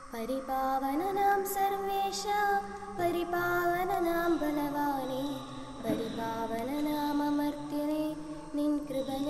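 A high voice sings a slow liturgical hymn in held, gliding notes over sustained accompanying tones.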